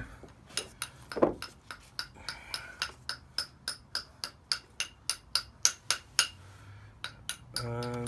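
A hammer lightly tapping metal in a quick, even run, about four taps a second, each with a short metallic ring.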